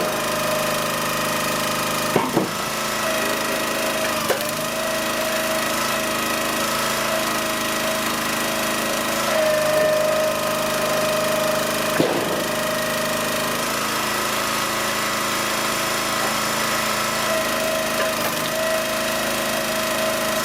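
Small gasoline engine of a log splitter running at a steady speed, with a few sharp cracks of firewood splitting, about 2, 4 and 12 seconds in.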